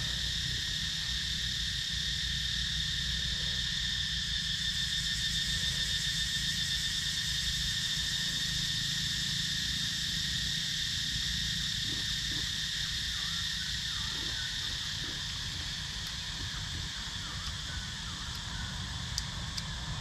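Steady, high-pitched chorus of forest insects droning without a break, with a low rumble underneath.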